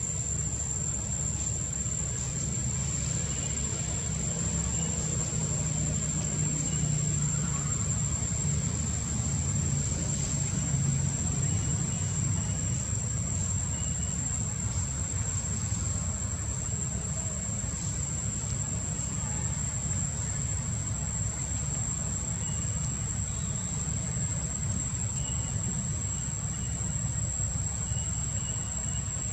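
Steady outdoor ambience: a low rumble, a little stronger for a few seconds in the first half, under a constant high-pitched insect drone, with faint short chirps now and then.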